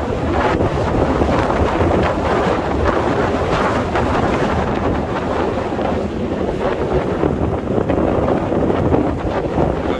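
Steady wind rushing over a phone's microphone while riding a scooter along the road.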